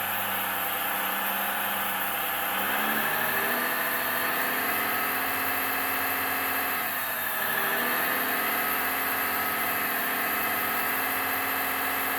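Proportional sound module of a 1/14-scale RC hydraulic excavator playing a diesel engine sound along with the machine's hydraulic pump. The engine note changes pitch as the hydraulic functions are worked, about three seconds in and again about seven seconds in.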